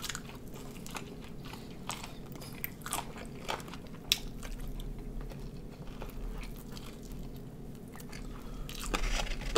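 Close-up chewing and biting into bone-in chicken wings, with scattered small crunches and one sharper click about four seconds in.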